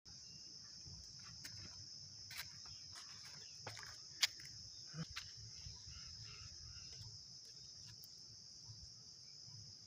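Faint, steady, high-pitched drone of insects, with a few soft clicks; the sharpest click comes about four seconds in.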